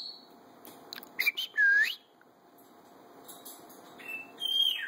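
Timneh African grey parrot whistling: a few short clicks, then a swooping whistle that dips and climbs, and near the end a held whistle that falls in pitch.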